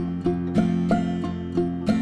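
Acoustic guitar and bowed fiddle playing an instrumental passage of a song, the guitar strumming chords about three times a second over sustained notes.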